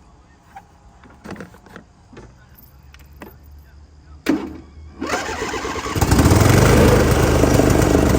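A few light clicks and knocks, then a John Deere LA130 riding mower engine cranked by its starter for about a second before it catches and runs loud and steady. The mower now starts after its positive battery cable has been replaced.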